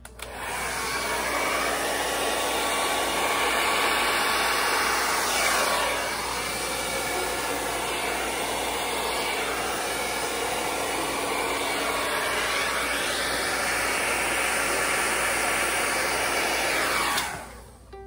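Handheld hair dryer switched on and blowing a steady rush of air over wet acrylic paint on a canvas. Its tone swoops slowly a couple of times as it is moved. It switches off about a second before the end.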